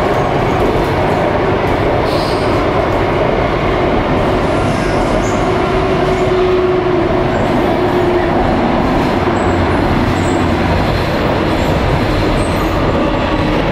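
An Alstom Metropolis C751A metro train under way, with steady, continuous running noise. A faint whine comes and goes in the middle and near the end.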